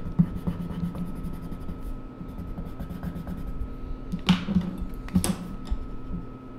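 A Derwent Inktense coloured pencil scribbling on paper in quick repeated strokes, fading after about two seconds. Two brief sharp scrapes come about four and five seconds in, as the pencil is put down and a water brush picked up.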